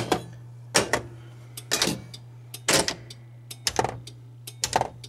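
1981 Bally Medusa pinball's drop-target coils pulsed one after another in solenoid test: a short clack about once a second over a steady low hum. Each pulse is too brief to reset the targets, so they only twitch.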